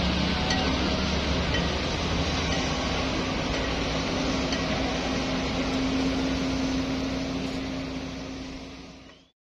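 Diesel engines of excavators and dump trucks running steadily at a construction site, a constant engine hum over a low rumble. The sound fades out near the end.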